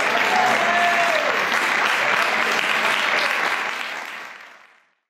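Audience applauding, with a voice calling out briefly about a second in; the applause fades away near the end.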